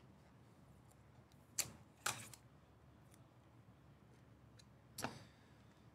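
Faint handling noise as a trading card is worked out of a cardboard slider box: a sharp click about one and a half seconds in, a short scrape at about two seconds, and another click near five seconds.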